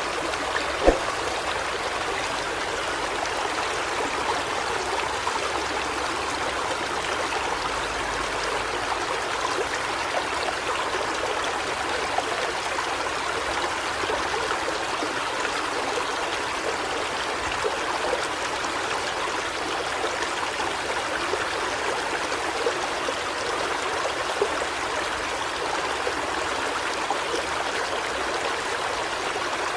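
Steady rush of flowing water, with one sharp click about a second in.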